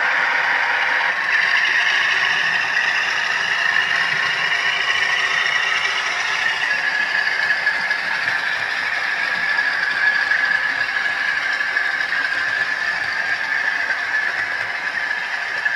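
OO gauge model train running along the track: a steady rattle and clatter of the coaches' wheels on the rails, with a high hum that drifts slowly in pitch.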